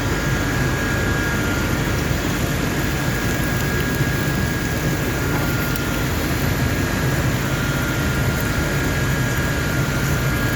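Steel profile production line running steadily: an even machinery noise with a low hum and a steady high tone that shifts slightly in pitch a couple of times.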